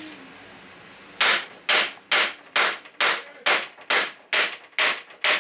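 A hammer strikes the wood inside a kitchen base cabinet to knock the cabinet apart for demolition. The blows start about a second in and come in an even rhythm of about two a second, ten of them.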